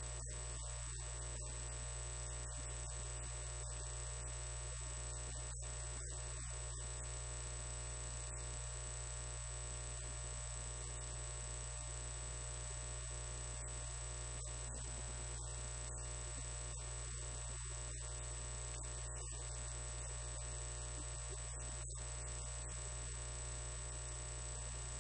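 Steady electrical hum in the recording, low and unchanging, with a thin constant high-pitched whine above it and no voices, as if the microphone's signal has dropped out and left only the hum.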